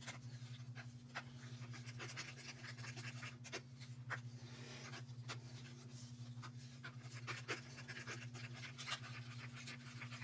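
Craft stick stirring thick acrylic paint in a small plastic cup: quick, rhythmic scraping, with sharp clicks as the stick hits the cup walls. A steady low hum runs underneath.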